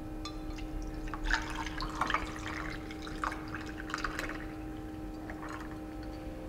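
Brewed coffee poured from a glass server into a glass of ice: a thin stream splashing, with small ticks and clinks from the ice, stopping after about four and a half seconds. A steady low hum runs underneath.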